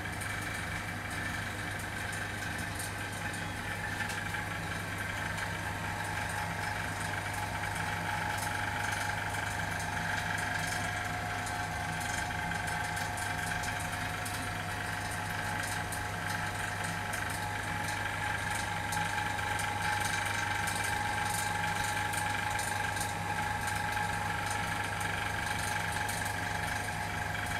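Vacuum pump running steadily while evacuating a refrigeration unit: an even low hum with a constant higher whine over it.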